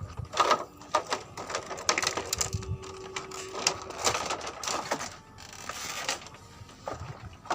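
Fishing reel being cranked to bring in a hooked fish: irregular runs of mechanical clicking and knocks, with a faint steady hum for a couple of seconds in the middle.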